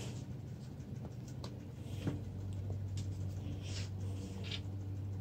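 Faint, scattered clicks and scrapes of hands working at a bicycle saddle's seatpost clamp, over a steady low hum.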